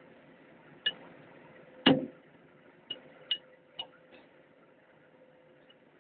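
Steel wrench clinking on the bolts of a bare diesel cylinder head as they are worked loose. About six sharp metallic clicks come in the first four seconds; the loudest, about two seconds in, has a heavier knock.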